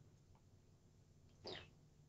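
Near silence: room tone, with one faint brief sound about three-quarters of the way through.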